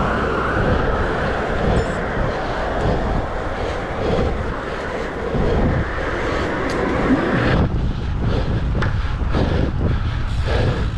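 Wind rushing over the microphone of a bike-mounted camera while a road bike rides along, with tyre and road noise underneath. The rush drops sharply about three-quarters of the way through and turns patchy.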